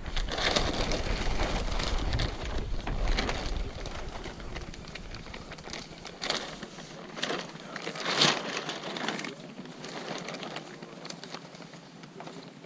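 Camouflage tarp rustling and crinkling as it is handled, with a few louder crinkles about three, six and eight seconds in.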